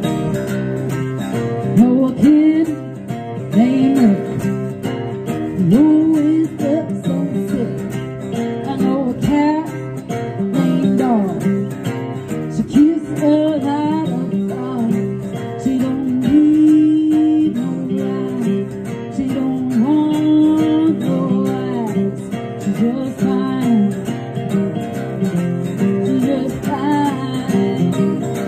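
A woman singing a song, accompanied by two strummed acoustic guitars.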